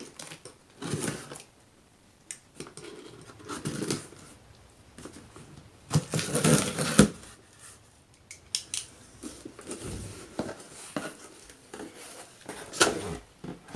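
Packaging of a diamond painting kit being handled and opened: scattered rustling, crinkling and clicks, with a longer noisy stretch about six seconds in and a sharp click near the end.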